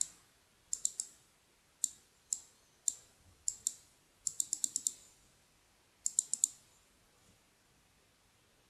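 Computer mouse clicking: scattered single clicks and pairs, a quick run of about six clicks halfway through, and a last cluster of four at about six seconds.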